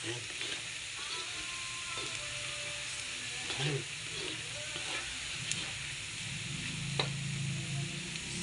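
Food frying in hot oil with a steady sizzle, stirred with a spoon that knocks lightly against the pan now and then, with one sharp click late on.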